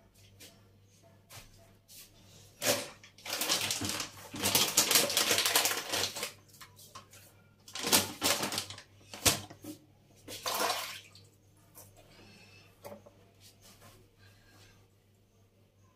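Crinkling and rustling of a soft plastic refill pouch handled over a plastic dish-soap bottle. There is a knock, then a long crackly burst of about three seconds, then several shorter bursts.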